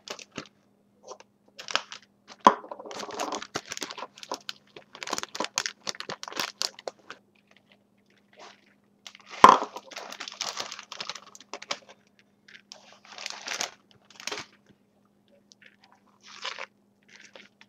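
A metal spoon stirring a thick mix of sour cream, melted butter and shredded cheddar cheese in a mixing bowl: irregular scrapes and clicks of the spoon against the bowl, with one sharp knock about nine and a half seconds in.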